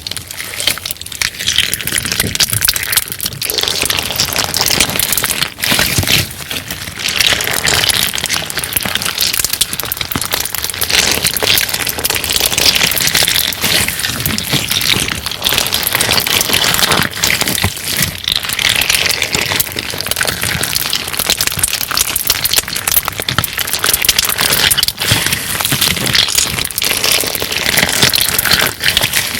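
Crunchy clear 'crystal glass' slime being squeezed and handled, giving a continuous dense crackling with many small pops and crunches.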